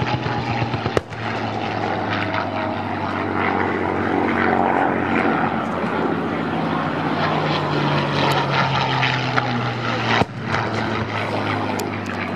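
P-51 Mustangs flying past with their Packard-built Rolls-Royce Merlin V-12 engines running, a steady propeller drone.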